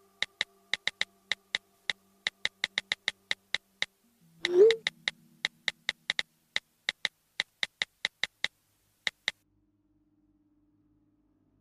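Smartphone keyboard tap clicks, irregular at a few a second, as a chat message is typed, with a short loud rising blip about four and a half seconds in; the tapping stops about nine seconds in.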